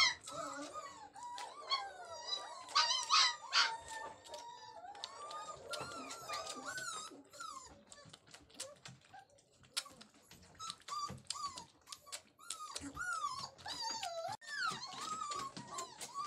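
Young puppies whining and whimpering in high, wavering cries, louder about three seconds in, with many short clicks mixed in.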